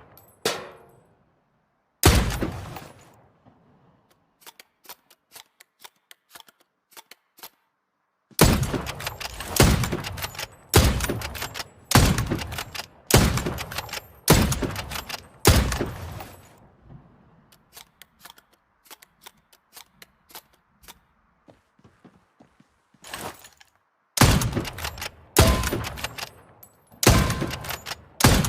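Hunting rifle shots, each a sharp crack with a decaying tail. A single shot comes first, then a quick string of about a dozen shots, then further shots roughly a second apart. Faint small clicks come between the first shot and the string.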